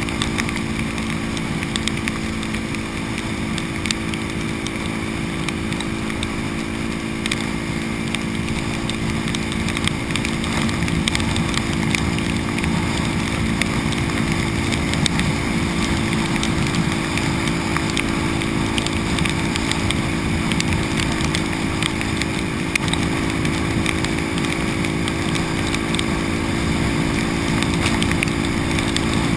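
Supermoto engine cruising steadily at highway speed in heavy rain, mixed with wind rush and road-spray hiss and scattered light ticks. It gets a little louder about ten seconds in.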